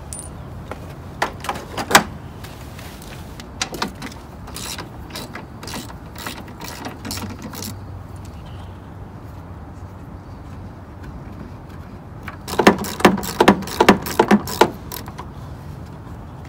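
Hand socket ratchet clicking in short runs while headlight mounting bolts are worked loose, with a longer, louder run of rapid clicks about twelve seconds in.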